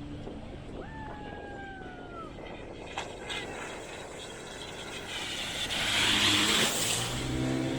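Speedboat engine running under way, with the rush of water and wind against the hull. About five seconds in the engine picks up and the rush swells louder as the boat speeds up. A short, slightly falling high tone sounds about a second in.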